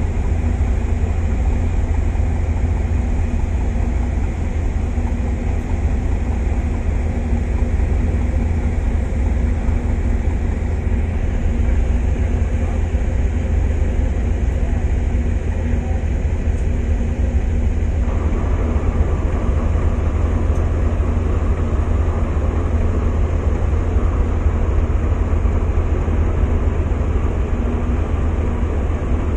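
A river vehicle ferry's engine droning steadily and low. About eighteen seconds in, a louder rushing hiss joins it.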